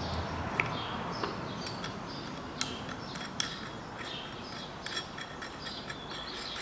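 Scattered light metal clicks and clinks, a few of them sharp, from small clamps being handled and fitted onto a steering rack boot.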